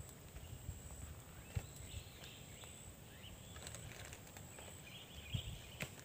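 Faint forest ambience: wind rumbling on the microphone, a thin steady high insect whine, and a few short bird chirps about two seconds in and again near the end, with a few soft knocks.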